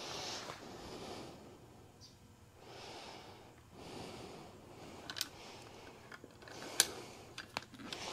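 A person breathing heavily through the nose in slow swells while handling a motorcycle headlamp housing. Several small sharp clicks of parts being fitted come from about five seconds in, the loudest a little before seven seconds.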